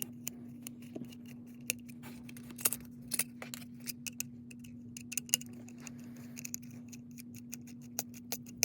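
Small screwdriver unscrewing a diecast model car from its plastic display base: irregular small clicks and scrapes of metal and plastic, over a steady low hum.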